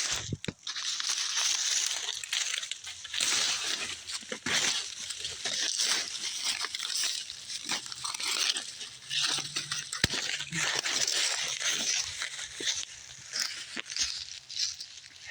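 Dry corn stalks and leaves rustling and crunching as someone pushes through a cornfield on foot, an irregular run of crackling with footsteps on dry debris.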